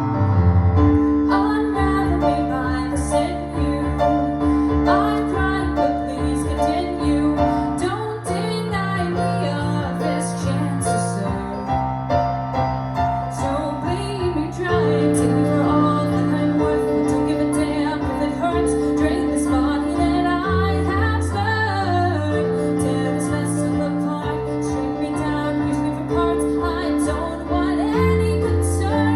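A solo singer performing a slow song over held keyboard chords, the voice coming and going above the chords.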